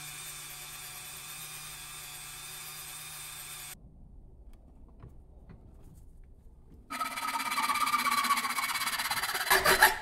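A Dremel rotary tool runs steadily, sanding an aluminum casting, and cuts off abruptly a little under four seconds in. After a quieter gap, a hacksaw saws loudly through the sprue of an aluminum casting held in a vise, loudest just before the end.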